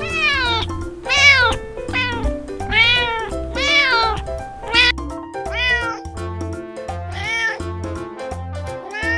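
Domestic cat meowing over and over, about nine meows that each rise and fall in pitch, over children's background music with a steady beat.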